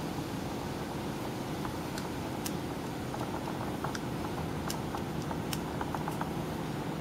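Steady low background hum, with a scatter of faint, light clicks from about two seconds in until shortly before the end.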